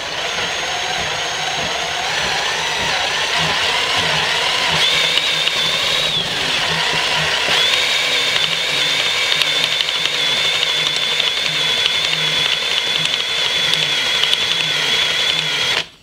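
DIY ceiling-fan-motor alternator with neodymium magnets spinning up to speed: a mechanical whine climbs in pitch over the first several seconds, dips briefly, then runs steady before cutting off suddenly near the end. Its output is feeding a power supply that is charging a battery.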